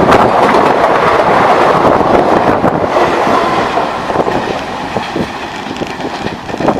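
Passenger coaches of an express train rushing past at speed, wheels clattering over rail joints in a dense stream of clicks, the noise growing fainter over the last few seconds.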